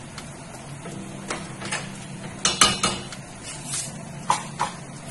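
A wooden spoon stirring squash in coconut milk, knocking against the sides of a stainless steel pan in a scattering of sharp clacks, loudest about halfway through, over a low steady hum.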